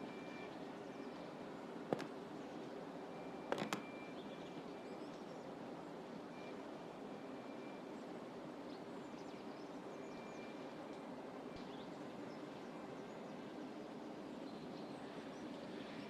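Steady outdoor ambience with faint, scattered bird chirps. Two sharp clicks stand out, one about two seconds in and another about three and a half seconds in.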